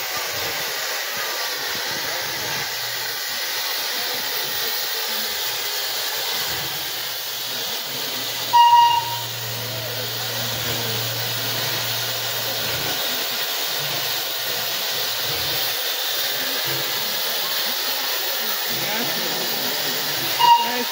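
Steam locomotive standing in steam, with a steady hiss of escaping steam. Its whistle gives two short toots, one about nine seconds in and another near the end.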